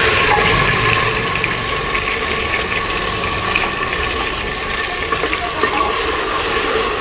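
Garlic, ginger and green chilli paste sizzling in hot oil in an aluminium pressure cooker: a steady frying hiss with scattered crackles.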